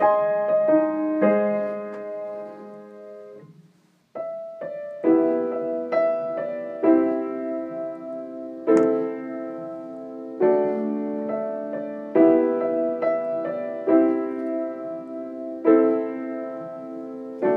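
Upright piano playing an instrumental passage of sustained chords between sung verses. The chords die away to a brief silence about four seconds in, then resume with chords struck about once a second.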